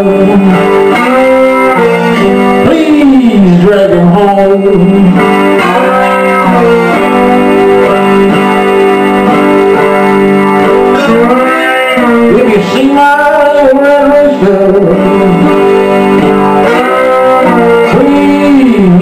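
Electric guitar played with a bottleneck slide, a blues solo with notes gliding up and down in pitch.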